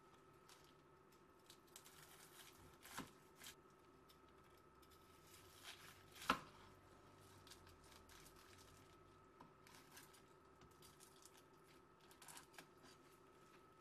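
Knife slicing through the crisp panko crust of a deep-fried saury roll: faint crunching and crackling, with a sharper crunch about six seconds in.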